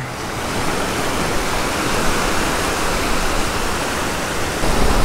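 Steady rushing wash of ocean surf breaking on the beach, with a deep rumble of wind on the microphone building near the end.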